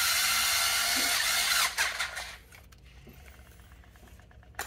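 Small cordless electric screwdriver running for about two seconds as it drives a number 10 bolt through a washer and the constant force spring, then slowing with a falling pitch and stopping.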